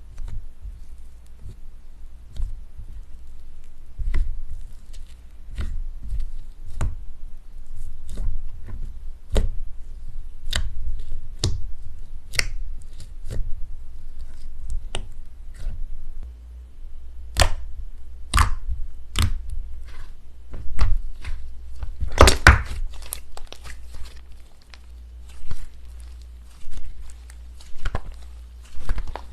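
Repeated sharp pops and clicks, irregular and roughly one a second, with a quick flurry of them about two-thirds of the way through, over a faint low hum.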